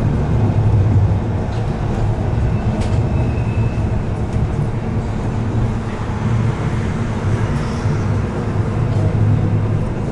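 Tram running on its rails: a steady low rumble with a few faint clicks.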